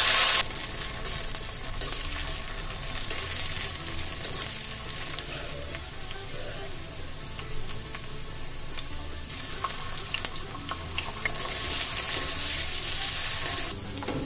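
Chopped okra frying in hot oil in an iron kadhai: a loud burst of sizzling at the start as it hits the oil, then steady sizzling with light scrapes and clicks of a metal slotted spoon stirring. Near the end the sizzling swells again as potato pieces go into the oil.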